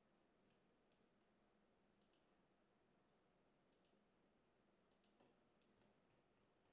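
Near silence with a scattering of faint computer mouse clicks at irregular intervals.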